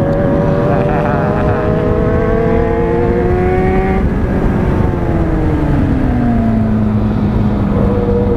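Yamaha 600 cc inline-four motorcycle engine heard from the rider's seat, with wind noise on the microphone: the engine note climbs steadily under acceleration for about four seconds, then falls as the throttle is rolled off and settles to a steady cruise.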